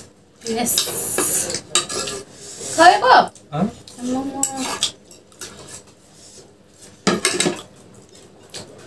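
Cutlery clinking and scraping against a bowl as instant noodles are stirred and eaten, in irregular bursts.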